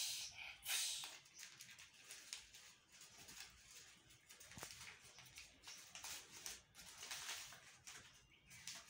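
Faint rustling and crinkling of a sheet of paper being handled and unfolded by hand, in short irregular bursts, a little louder just under a second in and again around two-thirds of the way through.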